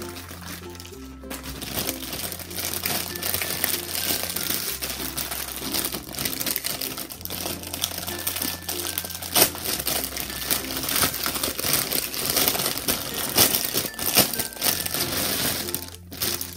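Plastic packaging crinkling and rustling as it is handled and peeled off a folded pop-up mesh insect cage. Background music with a steady bass line plays throughout.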